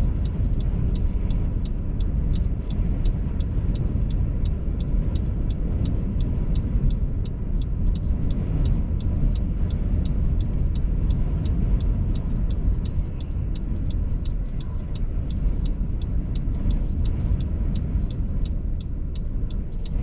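Strong wind buffeting a parked car, a steady low rumble heard from inside the cabin, with a faint regular ticking at about three a second.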